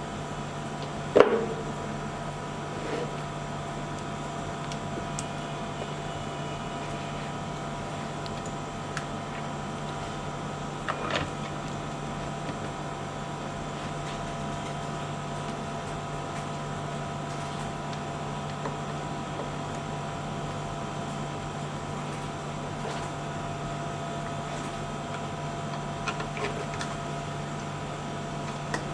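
Steady electrical hum with a few scattered clicks and knocks as a smart lock's back panel is handled and fitted onto the door, the loudest knock about a second in.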